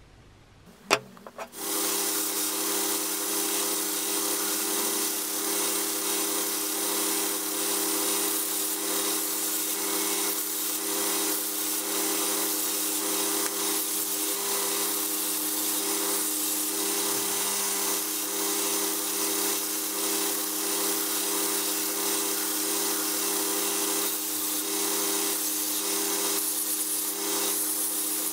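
A click, then a narrow belt sander running steadily with a steady motor hum and a sanding hiss as a resin-stabilized cork blank is pressed against its belt.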